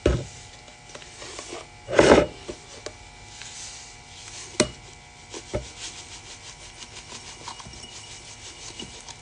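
Household objects being handled: scraping and rubbing, loudest in a short scrape about two seconds in, with a sharp click, a light knock and scattered small clicks.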